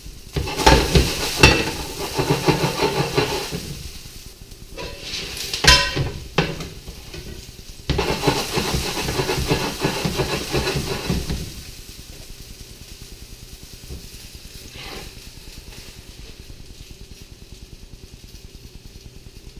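Honey mushrooms sizzling in olive oil in a very hot pan, stirred in loud bursts with a utensil that knocks sharply against the pan a couple of times. About eleven seconds in the stirring stops and the frying settles to a quieter steady sizzle.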